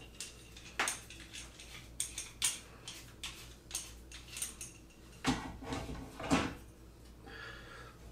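Rockler pocket-hole clamps clicking and clattering as they are positioned and locked onto the wooden cabinet edge: an irregular string of short, sharp clicks and knocks.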